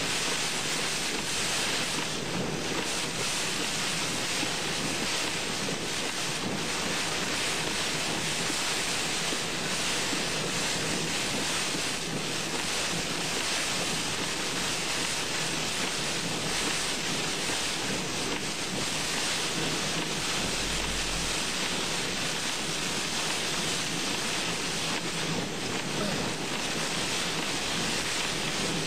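Heavy rain and strong storm winds battering a moving car, a steady rush of noise heard from inside the vehicle.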